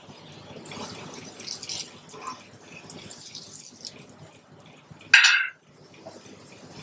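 Oil sizzling and crackling under a stuffed potato paratha frying on a hot iron tawa. About five seconds in there is one brief, louder sound, the loudest in the stretch.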